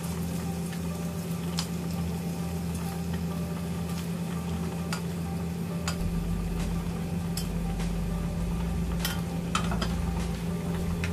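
Bacon strips sizzling in a frying pan as more are laid in, over a steady low hum, with a few light clicks and knocks of the strips and tongs against the pan.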